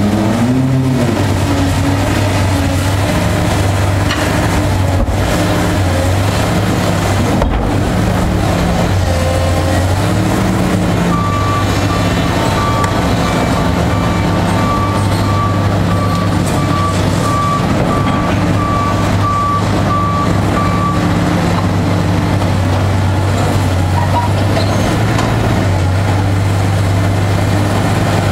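Link-Belt hydraulic excavator's diesel engine running under changing load as it works demolition shears, with a couple of sharp knocks in the first eight seconds. Midway a backup alarm beeps in a steady series for about ten seconds.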